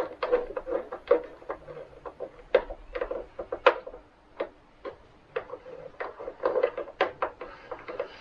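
Irregular small clicks and knocks of cables and plastic connectors being handled while wiring up a sewing machine servo motor, with a brief lull about halfway through.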